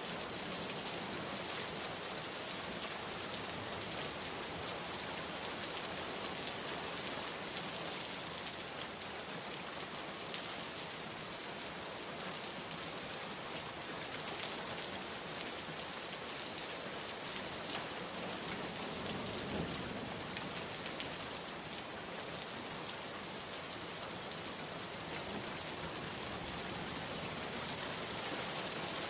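Steady rain falling, a dense even hiss of drops pattering on a surface.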